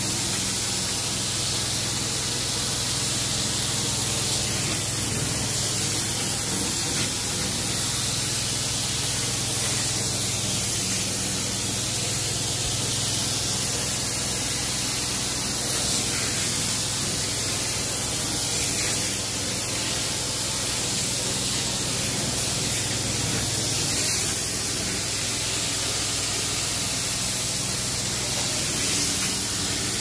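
Carpet-cleaning extraction wand working over carpet: a steady rushing hiss of suction and water spray, with a low steady hum underneath.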